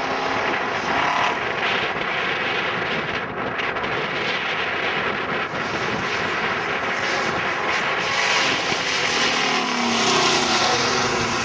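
Classic Ford Mustang fastback's engine running hard as the car is driven quickly through a cone course. Its pitch rises as it accelerates near the end.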